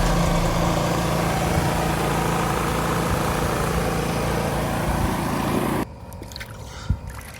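A motor-driven machine running steadily with a hum under a loud hissing rush, which cuts off suddenly about six seconds in; a few faint clicks follow.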